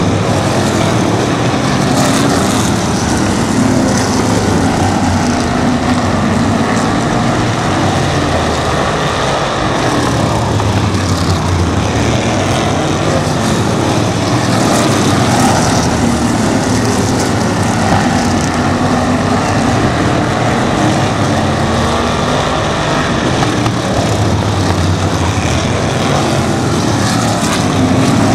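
A pack of sprint cars racing, their V8 engines running loud and continuous at high revs, the engine note wavering up and down as the cars come past and go away.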